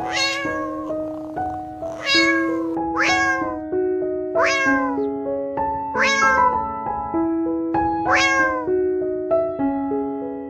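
A cat meowing six times, each meow starting high and falling, over background music with simple held keyboard notes.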